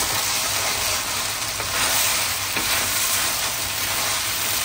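Fried rice sizzling in a wok over a high gas flame while a spatula stirs and tosses it, scraping against the pan.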